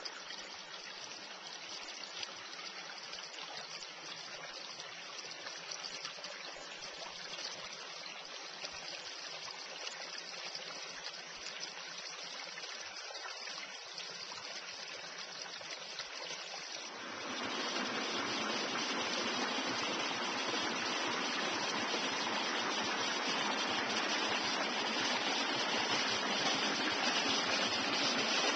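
Small woodland creek flowing over stones, a steady rush of running water that gets noticeably louder about two-thirds of the way through.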